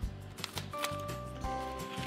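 Background music with soft held notes, and a single snip of scissors about half a second in as a packet of sprinkles is cut open.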